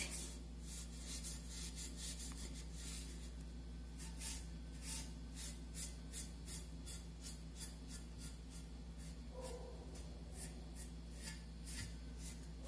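Repeated short, scratchy rubbing strokes, about one or two a second at an uneven pace, as bitumen patina is worked onto the surface of an old vase.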